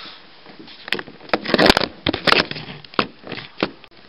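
An irregular run of sharp clicks, knocks and short rustling scrapes, busiest and loudest in the middle: things being handled and moved about close by.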